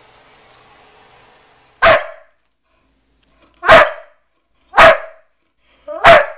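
White-and-tan bulldog-type dog barking: four loud single barks spaced one to two seconds apart, the first about two seconds in.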